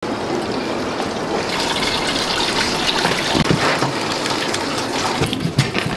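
Steady rush of flowing water, with a few short knocks in the second half.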